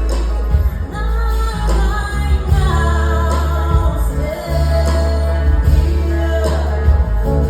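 Live music: a woman singing a song over instrumental accompaniment with a strong, sustained bass.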